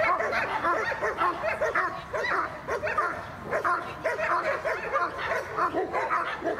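German shepherd barking rapidly and without a break, two or three barks a second, as a guard dog challenges a helper holding a bite sleeve in protection work.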